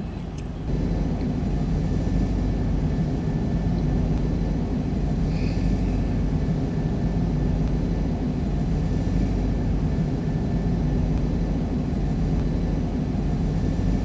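Steady, low engine rumble like an aircraft in flight: a spaceship cockpit engine sound effect. It comes in about a second in and holds level throughout.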